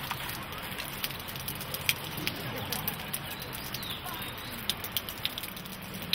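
Steady rush of a flowing river, with scattered sharp clicks and crackles throughout and a few faint bird chirps about four seconds in.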